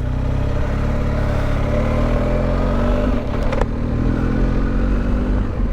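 Motorcycle engine accelerating under way, its pitch climbing over the first few seconds and then holding, with wind noise and a couple of short clicks about three and a half seconds in.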